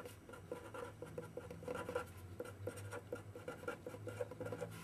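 Pen scratching across paper in many short strokes as block letters are printed by hand; quiet, over a steady low hum.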